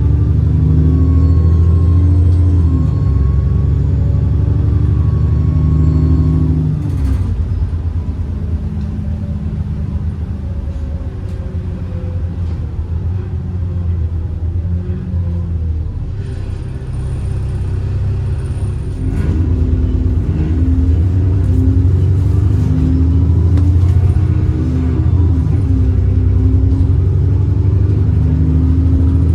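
Alexander Dennis Enviro 400 double-decker bus's diesel engine pulling hard, with a thin wavering turbo whistle over the low engine note. About seven seconds in the engine eases off and runs quieter, then picks up strongly again around nineteen seconds.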